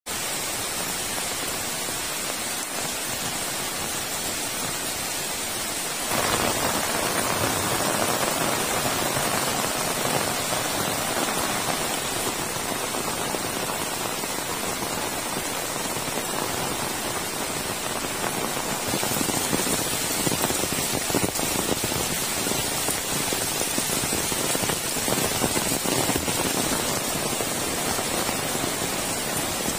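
Heavy rain falling steadily on roofs, leaves and wet ground, an even dense hiss of downpour. It turns suddenly louder and fuller about six seconds in.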